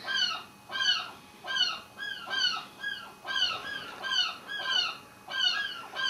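Gulls calling on a chimney pot, heard down the chimney into the room: a steady run of loud yelping calls, about three every two seconds, each note rising and falling in pitch.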